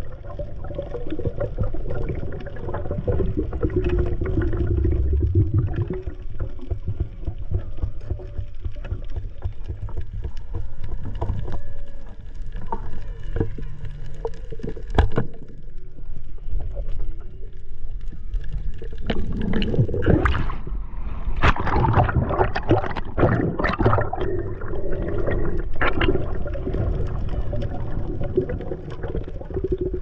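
Underwater sound on a shallow coral reef: a steady low rumble of moving water with many scattered clicks and crackles, busier and louder for several seconds in the last third.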